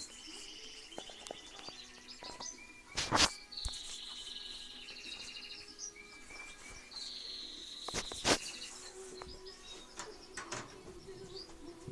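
Caged finches twittering and singing in quick high trills, with two loud knocks, about three and eight seconds in, from the camera being handled.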